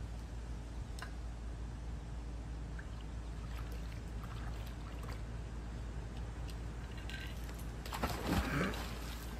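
A dog splashes into swimming-pool water about eight seconds in, a short burst of splashing, over a low steady hum with a few faint clicks.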